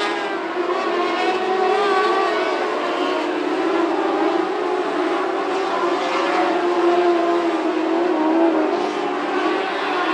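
Several lightning sprint cars' 600cc motorcycle engines running at high revs around a dirt oval. Their overlapping engine notes waver and rise and fall as the cars go through the turns.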